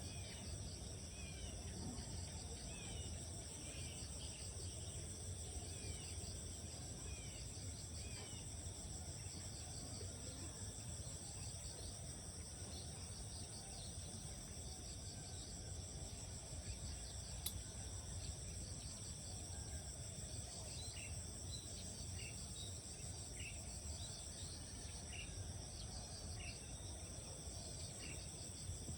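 Steady, high insect chorus, with a bird calling in short falling chirps about once a second for several seconds near the start and again in the last third. A single sharp click comes about two-thirds of the way through.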